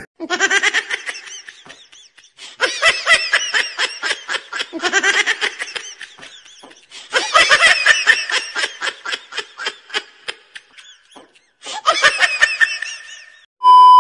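Bouts of high-pitched human laughter, pulsing quickly with short breaks between bouts. Near the end a steady one-tone test-card beep cuts in.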